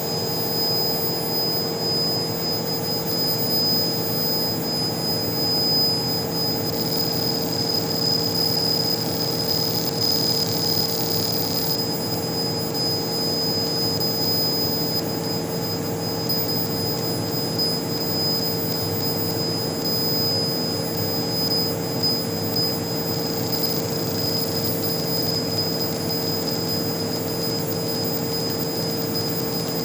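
CNC laser machine running: a steady hum with a constant thin high whine, and a hiss that swells for a few seconds about a quarter of the way in and again near the end.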